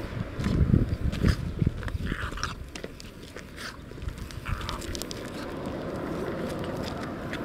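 Footsteps crunching on loose gravel as a person walks with a small dog, in irregular crunches and clicks. Heavier thuds come in the first two seconds.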